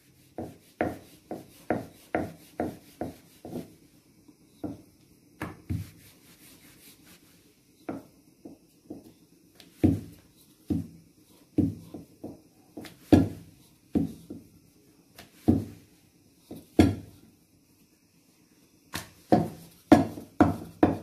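Wooden rolling pin rolling dough thin on a round marble board: a string of short knocks and rubs as the pin is pushed back and forth. The strokes come quickly at first, then more spaced, with a brief pause before a last quick run near the end.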